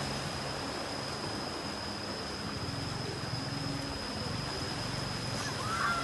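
Pickup truck fording a shallow river: its engine running low under a steady rush of splashing, flowing water, with a steady high-pitched tone throughout and a brief sliding call near the end.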